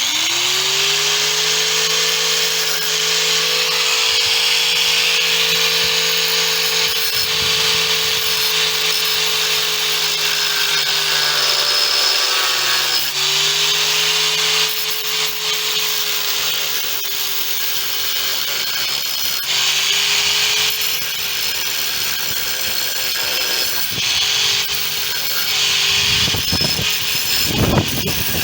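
Angle grinder cutting through steel truck-bed bolts: a steady motor whine with a hiss of grinding. The motor dips in pitch under load twice, then recovers, and it cuts off near the end.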